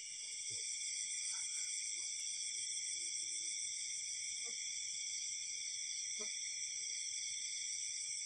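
Night insect chorus: crickets trilling steadily in several high-pitched bands at once, with a few faint scattered taps.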